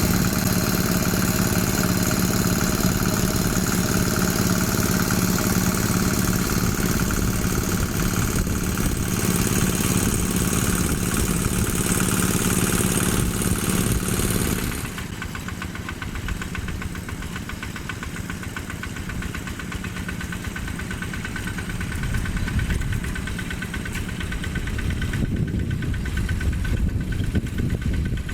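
The single-cylinder Yanmar diesel engine of a Quick G1000 hand tractor running steadily while ploughing. About halfway through it becomes noticeably quieter and duller, then swells slightly again near the end.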